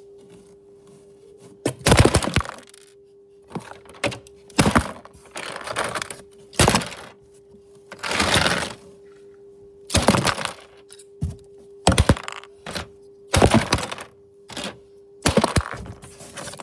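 Plastic LEGO pieces and a minifigure being knocked apart and scattered on a LEGO baseplate: an irregular run of sharp cracks, knocks and clattering rattles, some single hits and some lasting up to a second, with the longest clatter about halfway through.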